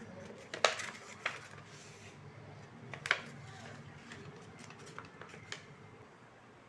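Hand-crafting sounds: paper being handled and small tools or objects tapping and clicking on a tabletop, irregularly. The sharpest clicks come about half a second in and about three seconds in.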